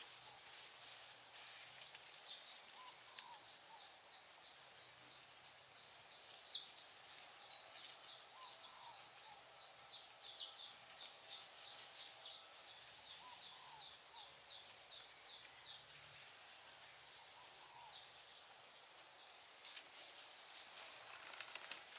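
Faint forest ambience: a steady high insect drone, with a bird repeating short descending chirps a few times a second for most of the time, and a few softer, lower calls. A few small clicks near the end.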